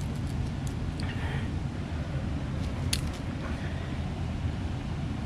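Steady low rumble with a few small, sharp clicks of metal pliers working a lure's hooks out of a bass's mouth, the sharpest about three seconds in.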